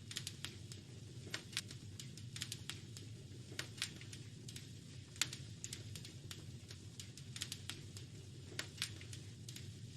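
Wood fire crackling: irregular sharp pops and snaps, the loudest about five seconds in, over a steady low rumble.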